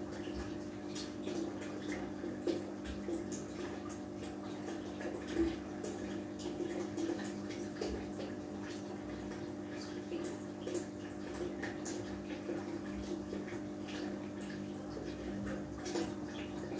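Aquarium filter outflow pouring into the tank's water surface: a continuous trickling splash with many small drip-like ticks, over a steady low hum.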